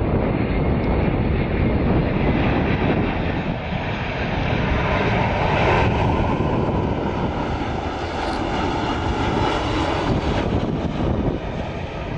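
Airbus A340 four-engined jet airliner on final approach to land, its engines at approach power as it flies low past: a steady jet rumble with a faint whine above it, loudest about halfway through.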